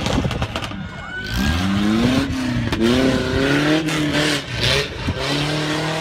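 Toyota off-road truck's engine revving hard in repeated bursts, the pitch climbing and dropping with each one as the truck works through a dirt obstacle course. A few sharp knocks sound in between.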